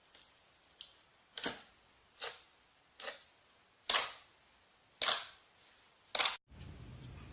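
Glossy slime being pressed and squished, giving a sharp pop about every second, around eight in all. The pops stop near the end and a steady faint hum takes over.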